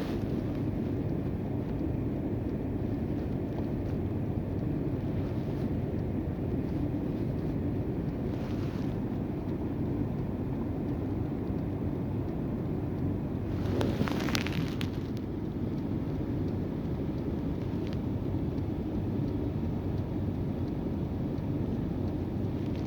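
Steady low rumble of a running car, with wind noise on the microphone. A brief louder rustle about 14 seconds in.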